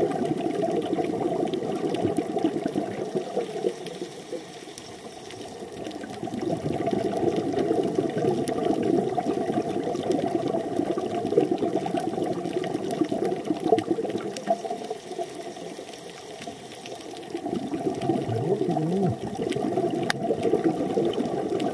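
Underwater rushing and bubbling from a scuba diver's regulator exhaust, in long stretches broken by two quieter spells of a few seconds between breaths.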